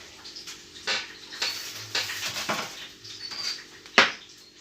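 Kitchen handling sounds while dough balls are shaped and filled: a few light clicks and knocks, with one sharp knock about four seconds in.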